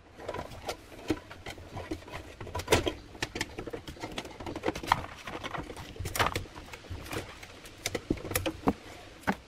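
Plastic cable tie and wire scraping and rustling against the sheet-metal holes of a car's trunk lid as they are fished through, with irregular small clicks and taps.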